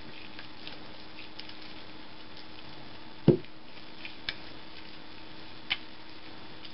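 Hands pressing and rubbing wheat-paste-soaked paper strips onto a ball: faint wet squishing, with a few small clicks and one louder knock about three seconds in.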